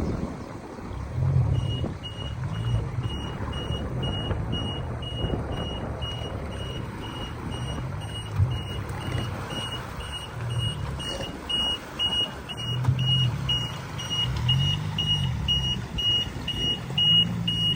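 A car's electronic warning beeper, a high steady tone repeating about twice a second, sounding over the car's running engine. The beeping starts about a second and a half in.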